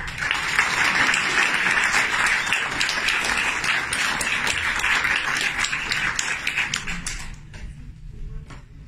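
Cinema audience applauding: a dense patter of many hands clapping that dies away about seven seconds in, leaving a few scattered claps.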